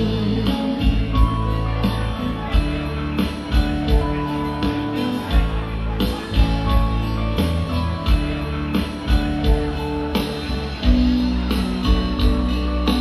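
Live rock band playing with a steady beat: electric guitar, bass guitar, acoustic guitar and drums.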